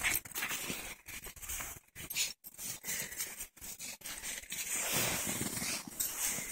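Irregular crunching and scraping of footsteps in deep snow.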